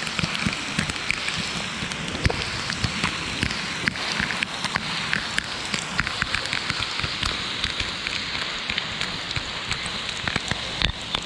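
Heavy rain falling on a paved street: a steady hiss with many sharp ticks of close drops throughout.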